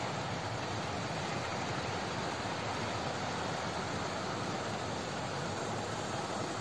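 Several OO gauge model trains running at once on adjacent tracks: a steady, even running noise of small wheels on rail and little electric motors.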